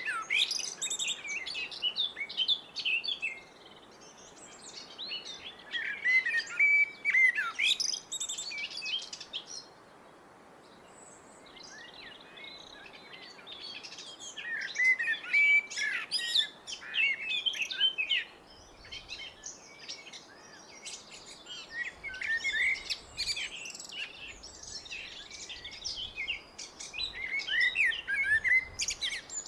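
Blackbird singing: about five song phrases with pauses of a few seconds between them, over a steady faint background hiss.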